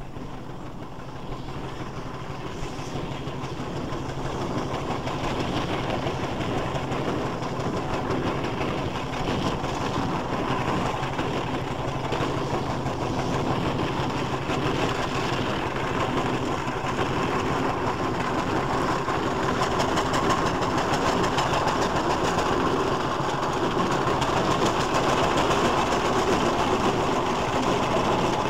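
Fowler agricultural steam traction engine No. 9689 running as it approaches. The sound grows louder over the first five seconds, then holds at a steady level.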